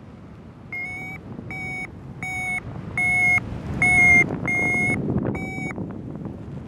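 Paragliding variometer giving seven short, even-pitched electronic beeps about two-thirds of a second apart, over wind rushing on the microphone.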